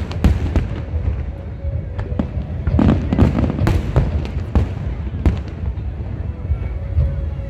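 Fireworks display: an irregular, rapid series of bangs and crackles over a steady low rumble.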